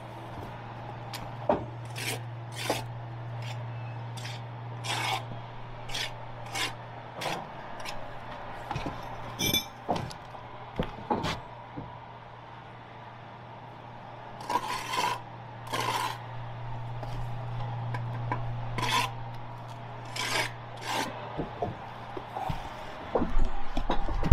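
Bricklayer's steel trowel scraping and tapping on brick and mortar in short, irregular strokes, over a steady low hum.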